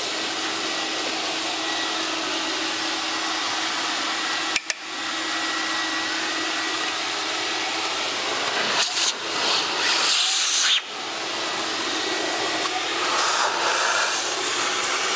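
Carpet extractor's vacuum motor running steadily with a humming whine while its upholstery tool sprays solution and sucks it back up from a fabric car seat. The hissing grows louder around nine seconds in and again near thirteen seconds, and the sound dips briefly twice.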